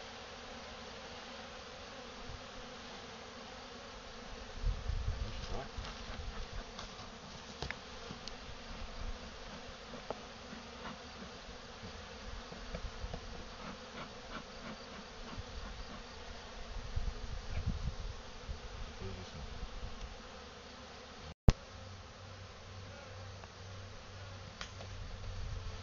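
Honeybees from a freshly hived swarm, apparently European dark bees, buzzing steadily around the hive, with a few low bumps and rumbles. There is one sharp click about three quarters of the way through.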